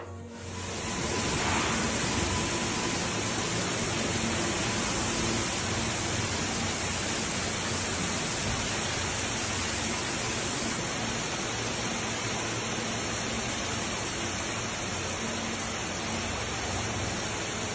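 Steady, even rush of flood water, loud and unbroken; it starts about half a second in and cuts off suddenly at the end.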